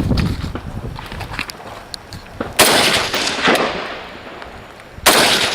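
Two rifle shots about two and a half seconds apart, each a sharp crack followed by a long fading echo.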